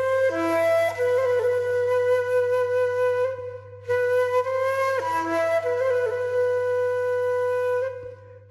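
Background music: a solo flute playing a slow melody in two phrases, the second a near-repeat of the first after a short break about three and a half seconds in, fading out near the end.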